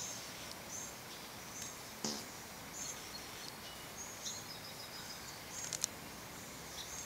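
Faint outdoor ambience with short, high bird chirps scattered through it, a soft knock about two seconds in and a couple of quick clicks near the end.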